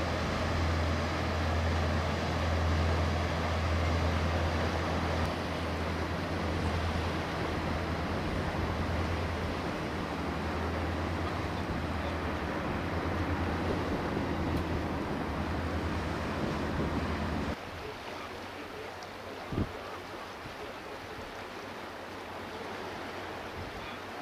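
Steady low drone of a passing ship's diesel engine over the wash of water, which cuts off abruptly about three-quarters of the way through. After that there is quieter wind and water noise with a single short thump.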